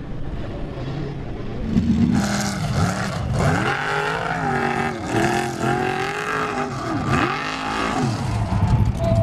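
Formula Offroad buggy's engine revving hard on a steep sand climb. From about two seconds in, its pitch swings up and down several times as the throttle is worked, after a quieter, rougher engine sound at the start.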